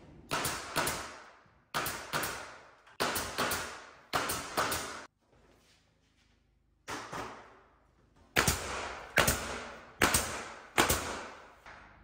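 Pneumatic nail gun firing into wooden wall trim: over a dozen sharp shots, each with a short hiss of exhaust air, coming in quick pairs and runs, with a pause of about two seconds near the middle.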